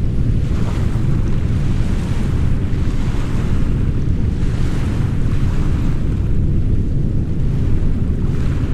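Steady deep brown noise mixed with ocean surf. The hiss of the waves swells and fades every two seconds or so over the unchanging low noise.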